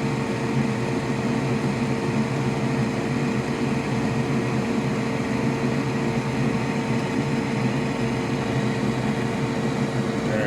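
Steady electric whir and hum of a fan-driven machine, with a constant mid-pitched tone running unchanged.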